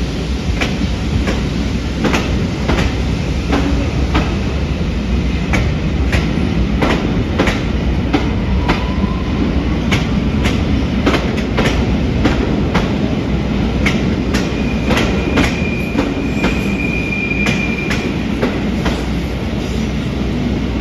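Passenger coaches rolling past, their wheels clicking irregularly over rail joints and pointwork over a steady rumble. A high wheel squeal rings for about three seconds past the middle.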